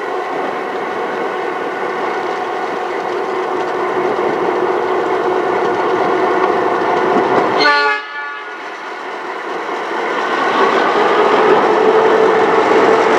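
Clyde-built EMD 49 class diesel-electric locomotives passing slowly at close range, engines running with a steady drone. There is a short horn blast about eight seconds in, and the engine sound grows louder near the end as the locomotives come alongside.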